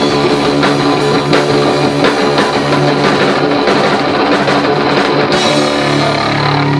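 Live heavy rock band playing loud, with a pounding drum kit and distorted electric guitar; about five and a half seconds in, the drums stop and a held guitar chord rings on.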